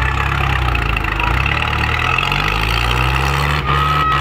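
Tractor diesel engines labouring under heavy load in a tractor tug-of-war. The engine note rises slightly about two seconds in, and a short high-pitched tone sounds near the end.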